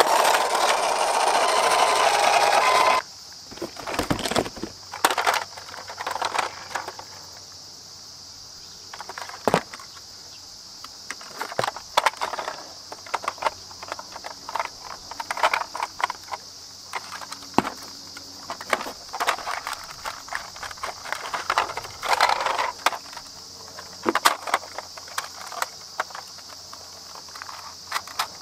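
Scattered plastic clicks and rattles of a toy articulated bus being handled and turned over a cardboard box, with a steady high hiss behind. A louder, denser sound fills the opening seconds and cuts off suddenly about three seconds in.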